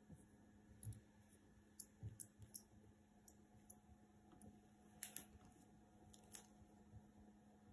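Latex-gloved fingers tapping a laptop keyboard: faint, irregular key clicks, a few in quick succession, over a steady low hum.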